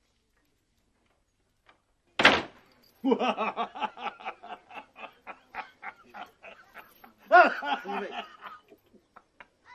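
A man laughing hard: a sudden loud outburst about two seconds in, then a long run of rhythmic ha-ha pulses, about three or four a second, that swells louder again near the end before fading out.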